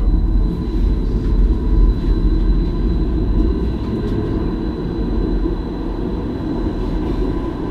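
Stadler Variobahn light-rail tram running along its track, heard from inside the front of the tram: a steady rumble of wheels on rails with a faint steady whine over it.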